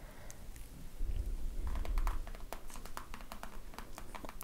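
Close-miked ASMR brushing: something soft rubs against the microphone, giving a low rumble about a second in. From about halfway, an uneven run of light, quick clicks and taps follows.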